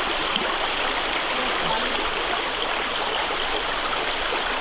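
Shallow creek water running steadily over gravel.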